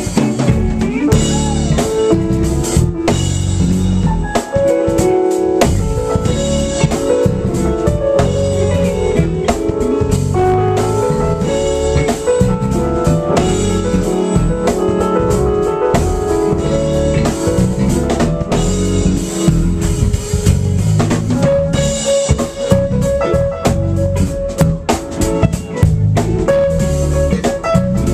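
Live band playing an instrumental passage, with the drum kit's bass drum and snare driving a steady beat under guitar and a moving melodic line.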